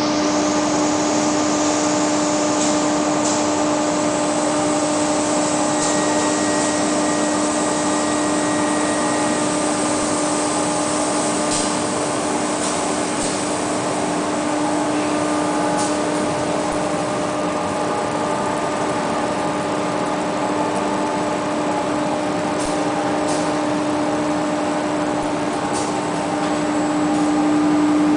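EVA sheet extrusion line running: a steady machine hum with one strong steady tone and fainter tones above it, with occasional faint ticks. It gets a little louder near the end.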